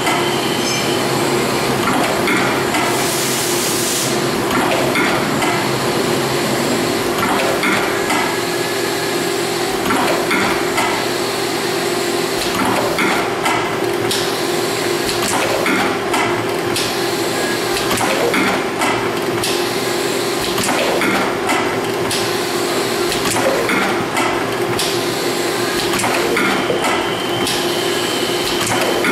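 Rotary cup-lidding machine running: a steady hum under repeated clacks and knocks as the turntable indexes and the pneumatic heads press lids onto the cups. A short burst of air hiss about three seconds in.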